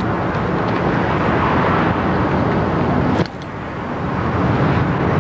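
Steady, fairly loud rumbling vehicle noise. It drops off abruptly about three seconds in, then builds back up.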